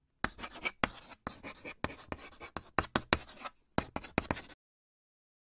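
Chalk scribbling on a chalkboard: a quick run of scratchy strokes, stopping abruptly about four and a half seconds in.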